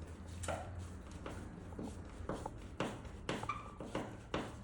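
A brass screw being turned in by hand with a screwdriver: a run of short clicks and creaks, about two a second from around two seconds in, with a brief squeak partway through.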